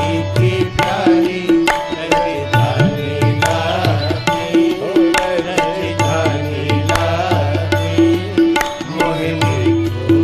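Background music: a passage of a Hindi devotional Ram bhajan with no sung words, tabla keeping a steady rhythm under a repeating melody.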